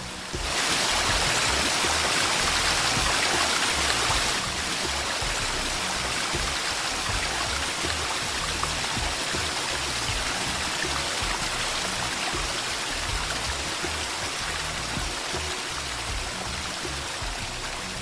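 Rushing water of a stream or waterfall, a steady hiss that is loudest for the first few seconds and then settles a little quieter, with background music underneath.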